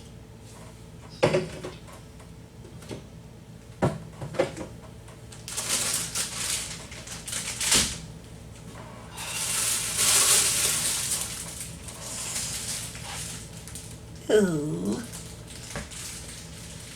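A refrigerator being cleaned: a few sharp knocks and clinks as things inside are handled, then two long stretches of hissing scrubbing noise.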